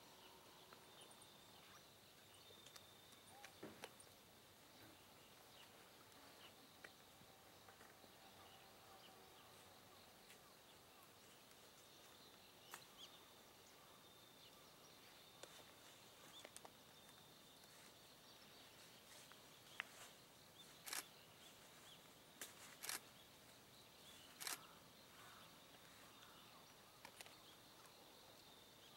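Near silence: faint outdoor ambience with a light hiss, a faint high-pitched chirping now and then, and a few scattered sharp clicks, the loudest in the second half.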